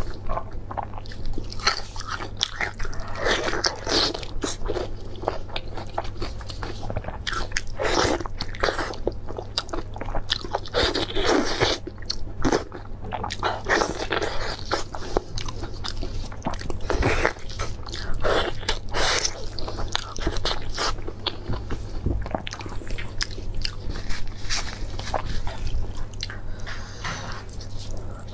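Close-miked biting and chewing of braised beef on the bone: a quick, irregular run of wet bites, tearing and mouth noises one after another.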